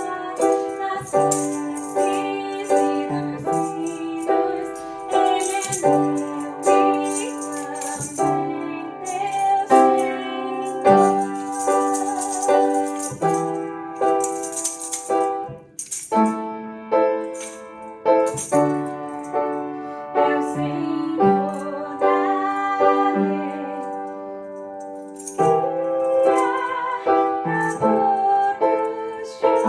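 Upright piano playing a tune, with a small handheld shaker rattled along in time, and a short break in the playing about halfway through.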